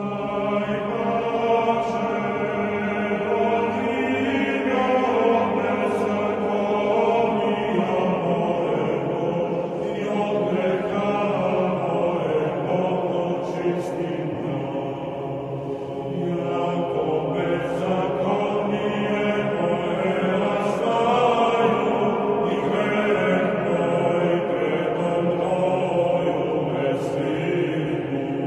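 Eastern Orthodox church chant as background music: voices singing slow, long-held notes.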